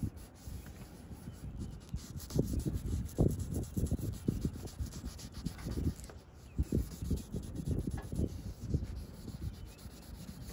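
A pad rubbed by hand over an oxidised plastic car headlight lens: uneven scuffing strokes, several a second, polishing the haze off the lens.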